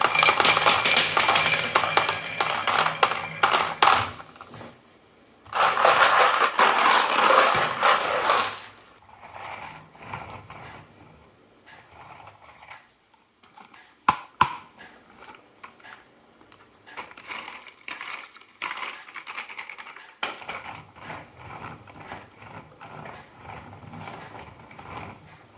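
Marbles rolling and clacking down a wooden marble run: two spells of dense rattling clatter in the first half, then sparser, quieter clicks.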